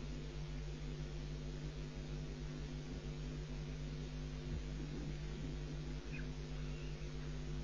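Steady low electrical hum with an even hiss, a constant mains-type hum on the audio line. A faint short high note sounds once about six seconds in.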